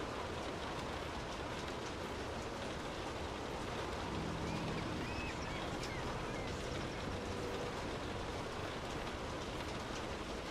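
Steady rain falling, an even hiss that holds the same level throughout, with a few faint high chirps in the middle.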